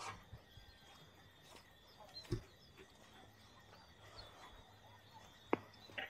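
Quiet outdoor ambience with faint, distant bird calls, a dull knock about two seconds in, and a sharp click near the end.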